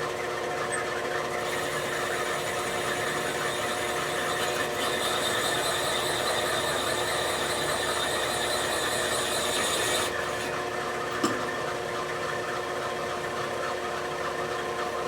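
Machine-tool spindle running steadily while a cutter trims metal on a Harley shovelhead cylinder head, cutting down to a set depth. A harsher cutting hiss joins about a second and a half in and stops about ten seconds in, and there is one small click near the end.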